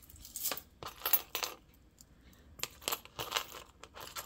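Costume jewelry clinking and jingling as it is handled and sorted by hand: metal pendants, rings and chain tapping against each other in a string of light, irregular clinks.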